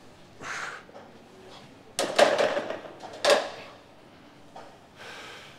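Weight-training noise during a set of a hamstring exercise: two loud knocks of gym equipment about a second and a half apart, with soft breaths before and after.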